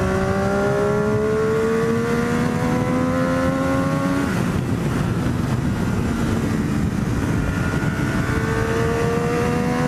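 Triumph Daytona 675's inline-three engine pulling under acceleration, its note rising steadily for about four seconds, with wind and road noise on the microphone. The engine note then drops out under the wind noise for a few seconds before climbing again near the end.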